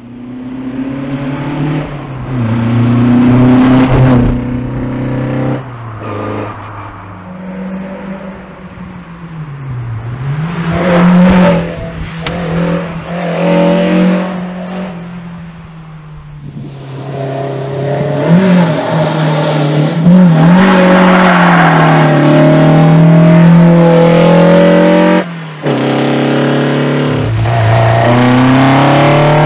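Tuned Skoda 120L's 1.5-litre Skoda Fabia four-cylinder on individual throttle bodies, revving hard: the engine note climbs and falls again and again as it accelerates and shifts.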